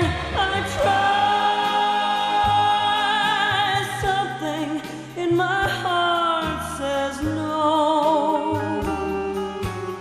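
A slow ballad: a woman sings long held notes with vibrato over instrumental accompaniment.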